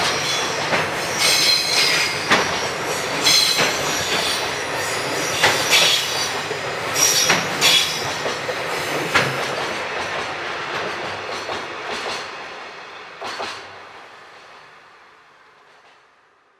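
A freight train rolling past, its wheels squealing and clacking over rail joints. The sound fades away from about ten seconds in, with a last clack shortly before it dies out near the end.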